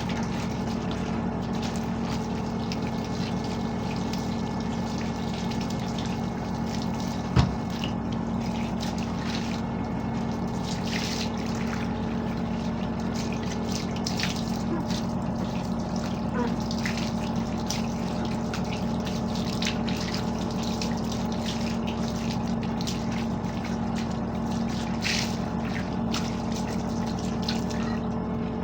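Steady hum of a small motor with running water, over scattered light clicks and scrapes; one sharp thump about seven seconds in.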